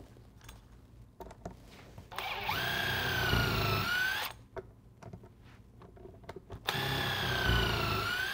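Cordless Makita half-inch impact wrench driving a power punch through a rubber conveyor belt, in two runs of about two seconds each. The motor's whine sags in pitch during each run and climbs back near its end, with small clicks of handling the tool between runs.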